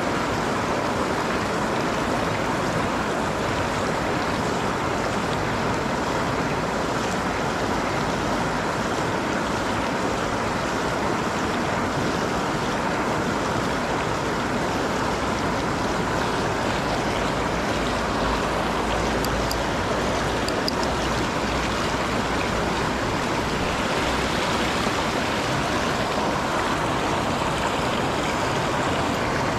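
Steady rush of river water running over a low concrete ledge.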